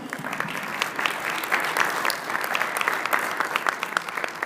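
Audience applauding: many hands clapping densely and steadily, beginning to thin out near the end.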